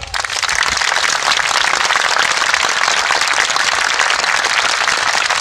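Large crowd applauding steadily, breaking out at the end of a marching band's piece.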